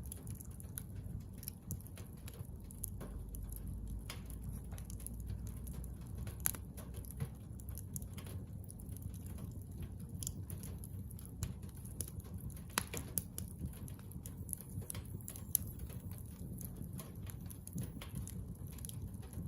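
Bonfire of scrap construction lumber burning, with irregular crackles and pops over a low rumble of the flames.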